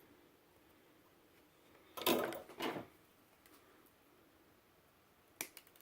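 Low room tone, broken about two seconds in by a short scrape or rustle twice in quick succession as parts are handled on a workbench, and a few light clicks near the end.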